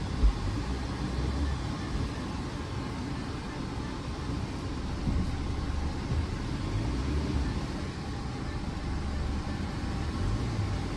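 Low, steady rumble of a car moving slowly, with a brief thump just after the start.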